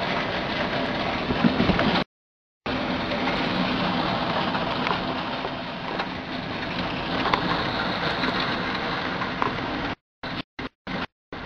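Hail and rain pelting down in a storm: a dense, steady hiss with scattered sharp ticks of hailstones striking. The sound drops out briefly about two seconds in and breaks up into short pieces near the end.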